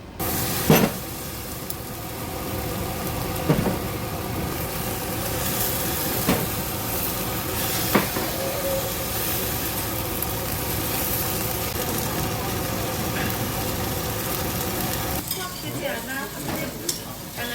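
Kimchi seafood pancake frying in oil in a hot pan, a steady sizzle that starts suddenly, with four sharp knocks against the pan in the first eight seconds or so.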